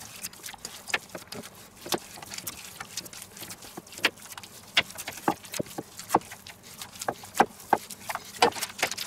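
Hands kneading a marzipan and chopped-nut mixture in a stainless steel bowl: irregular light clicks, taps and squishes as fingers press the mass and knock against the metal.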